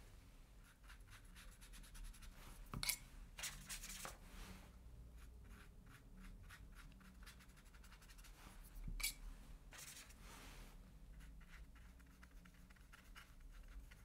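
Watercolour paintbrush stroking across paper, a run of faint scratchy brush strokes, with a few slightly louder strokes now and then.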